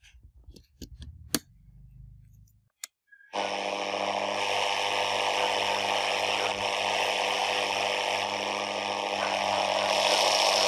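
A few sharp plastic clicks as the Sony portable radio's plug goes into a power strip and the set is switched on. About three seconds in, its speaker starts loud static hiss with a steady low hum under it: the radio is on but tuned between stations.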